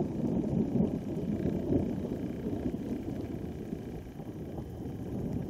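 Distant thunder from a cloud-to-cloud storm, rumbling low and without a break, easing a little past the middle and building again near the end.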